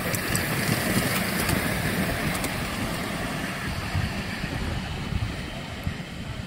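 Miniature railway train, a diesel-outline locomotive hauling ridden carriages, running past on the track with a few clicks over rail joints early on, its rumble growing fainter as it moves away.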